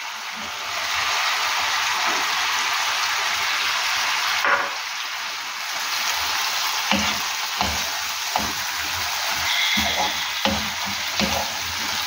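Cut radish pods (mongray) dropped into hot oil and tomato masala in a frying pan, setting off a steady sizzle. From about halfway through, a wooden spoon stirs them in, with irregular knocks against the pan.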